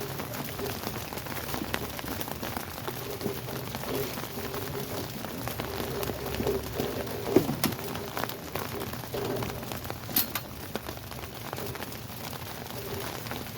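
Steady heavy rain falling and pattering, with a few sharp clicks and knocks, the clearest about halfway through and again about three-quarters of the way in.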